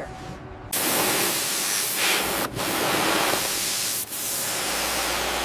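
A pressurised spray hissing loudly and steadily. It starts abruptly under a second in and is broken twice by brief dropouts.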